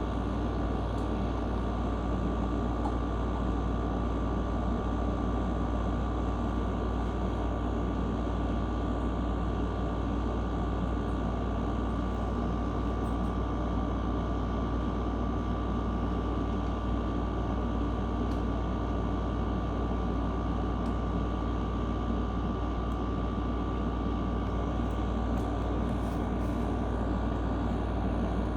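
Steady low drone with a faint constant high hum, unchanging throughout.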